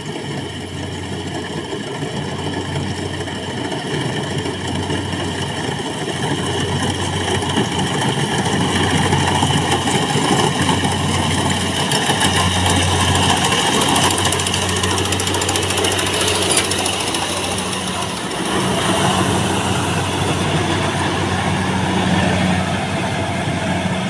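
Kubota DC-70 rice combine harvester running while it cuts, its diesel engine giving a steady hum under the clatter of the machinery. It grows louder as it comes close about halfway through and eases as it moves away.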